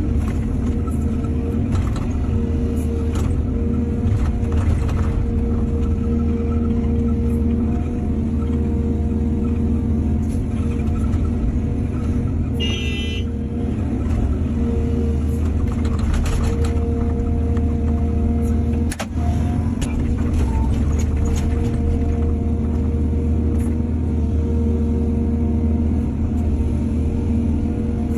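Excavator's diesel engine running steadily, with scattered knocks and clanks from the machine at work.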